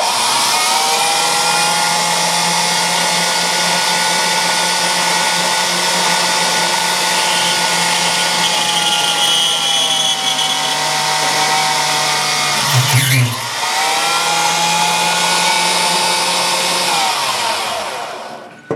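Electric drill running steadily while boring a small 3 mm centring hole. About two-thirds of the way through there is a brief low thump as the load changes, and the motor winds down near the end.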